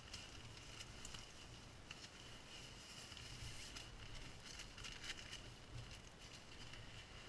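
Faint rustling and soft taps of an inflatable sleeping pad being lifted and turned over on the tent floor.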